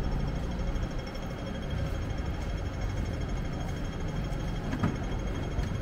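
City street traffic: a steady low rumble of running engines, with one short knock near the end.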